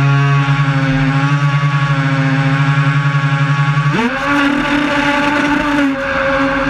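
Twin brushed electric motors of a radio-controlled racing boat whining steadily, with a fast, even pulsing. About four seconds in, the whine quickly rises to a higher pitch as the throttle is opened, and holds there.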